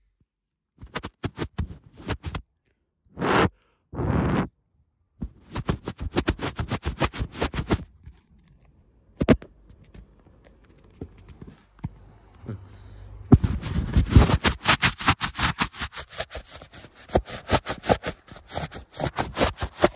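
Handling noise on a phone: a finger rubbing and tapping over the camera lens and microphone, making quick runs of scrapes and knocks, with two short bursts of noise a few seconds in and the loudest, densest scraping in the last third.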